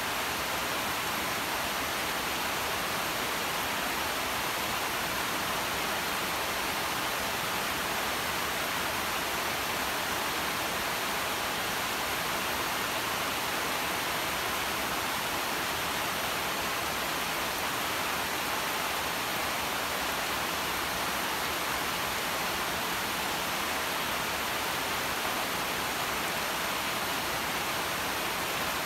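Steady rain falling on leafy vines: an even, unbroken hiss with no separate drops, thunder or other events standing out.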